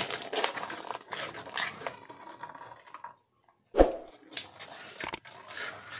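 A dog barking and whining in short calls, then a sudden loud thump just before four seconds in.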